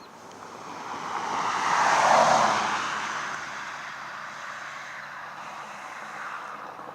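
A car driving past, swelling to its loudest about two seconds in and then fading away.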